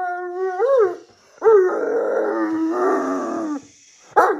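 A Great Dane howling and moaning in long, drawn-out calls as she complains. One call ends about a second in, a longer one lasts about two seconds, and another begins just before the end.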